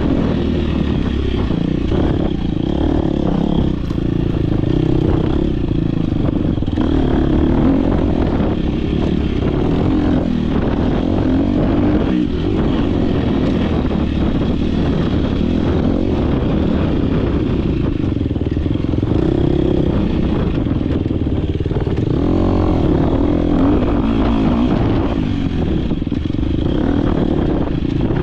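Dirt bike engine running hard under race throttle, its revs rising and falling continually, heard close up from an onboard action camera.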